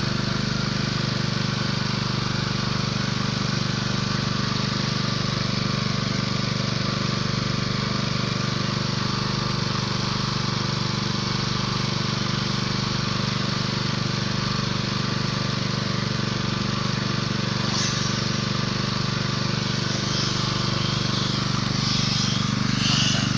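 A motor running steadily with a constant low hum, and short high-pitched sounds joining near the end.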